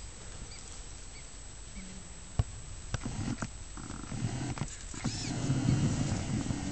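Lions feeding on a kill, giving low rumbling growls that start about three seconds in and grow louder near the end, with a few sharp clicks just before.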